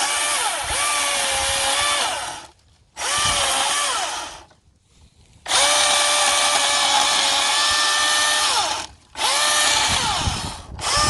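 Milwaukee M18 Fuel 16-inch battery chainsaw cutting in four bursts. Each time the trigger is pulled the motor's whine winds up and runs steady, then winds down in the short pauses between bursts.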